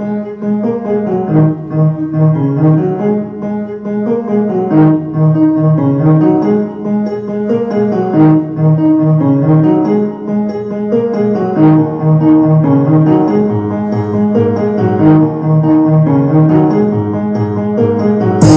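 Instrumental beat with a repeating piano chord pattern, played loud through a House of Marley Get Together Mini Bluetooth speaker. A deeper bass line comes in about eleven seconds in.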